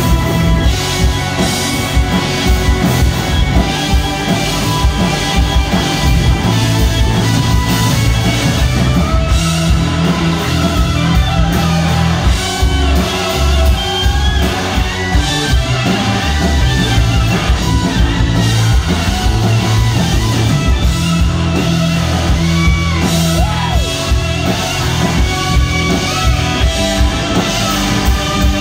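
Live blues-rock band playing loud: electric guitar lead with sliding, bent notes over a drum kit and bass.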